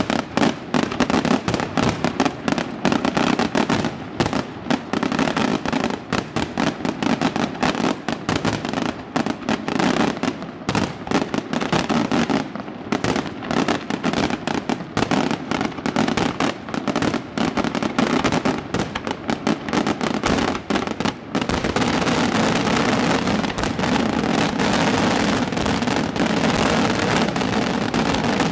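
Aerial firework shells bursting in rapid succession, many overlapping bangs. About 21 seconds in, the bangs merge into a dense, continuous barrage.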